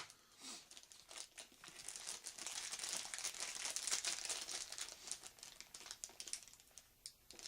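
Thin plastic bag crinkling as it is handled, a dense run of small crackles that is loudest in the middle.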